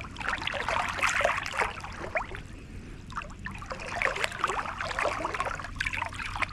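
Water splashing and trickling in irregular bunches of small gurgles.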